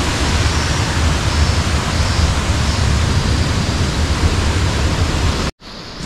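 Steady rushing of river water pouring through an irrigation headworks weir, with a deep rumble under the hiss. It cuts off suddenly near the end.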